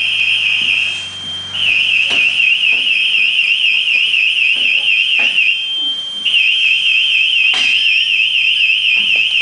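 Firefighter's PASS (personal alert safety system) alarm sounding: a shrill steady high tone with a fast warbling tone over it that drops out briefly twice, the alarm signalling a downed, motionless firefighter. Scattered knocks of gear and bodies moving.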